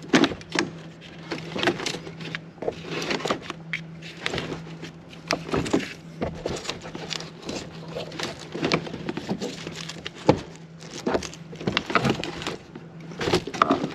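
A car battery being worked down into its tray: irregular knocks, clicks and scraping of the plastic battery case against the tray and its fabric insulating sleeve. A steady low hum runs underneath.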